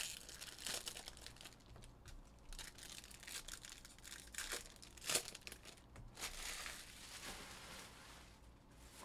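Foil wrappers of Bowman Jumbo baseball card packs crinkling and tearing as they are pulled open and crumpled, in irregular rustles with a sharper crackle about five seconds in.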